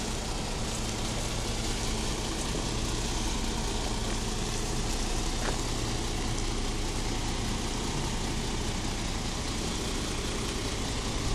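Diesel engine of a MAN heavy truck running steadily at low revs, with an even, unbroken low drone as the truck moves slowly.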